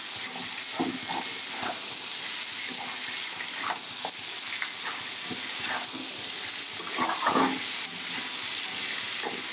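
Jackfruit seeds and yardlong beans sizzling in hot spiced oil in a metal pan while being stirred and sautéed, with a few short scrapes of the stirring against the pan, several close together about seven seconds in.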